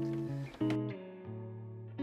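Guitar music: plucked notes ring and fade, with a new note struck about half a second in.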